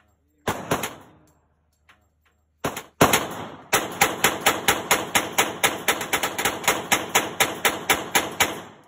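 Glock 27 Gen 5 .40 caliber pistol firing: a single shot, then two more, then a rapid string of about twenty shots at roughly five a second, dumping the magazine. Each isolated shot trails off in the range's echo.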